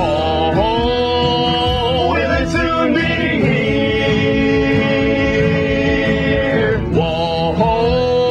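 Live music: voices holding long sung notes over an instrumental backing. One long held note runs through the middle and breaks off about seven seconds in.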